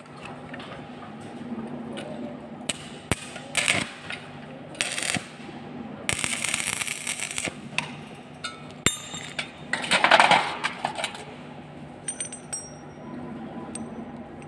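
Welding work on metal: several short crackling hisses, with sharp metal clinks and knocks in between and a struck piece of metal ringing briefly near the end, over a steady low hum.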